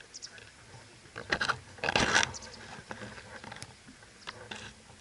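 Small-sided football on artificial turf: players' shoes scuffing and patting on the turf, with two loud sudden sounds, a short one about a second in and a longer scraping one at about two seconds, from ball strikes or shoes on the pitch.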